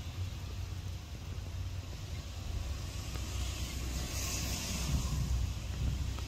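Low, steady rumble of road traffic, with a brief hiss about four seconds in.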